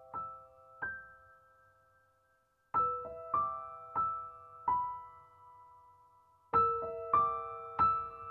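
Gentle background piano music: single notes struck one at a time in slow, short phrases, each ringing out and fading, with a pause of about two seconds after the first phrase.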